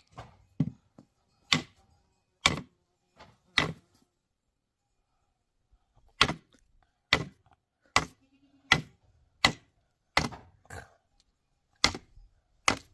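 About a dozen sharp knocking blows at uneven intervals, with a pause of a couple of seconds partway through, like a tool striking solid material.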